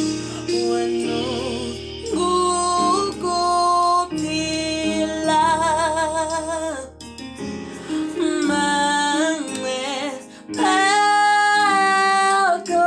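A woman sings a gospel worship song solo, with strong vibrato and long held notes, the longest and loudest near the end, over a soft, steady instrumental backing.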